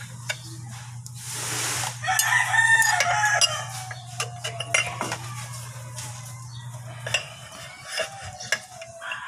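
Metal clinks and taps of a wrench working the mounting bolts of a truck engine's fan clutch. From about two seconds in, a loud drawn-out animal call slowly falls in pitch and trails on almost to the end, over a steady low hum that drops out about seven seconds in.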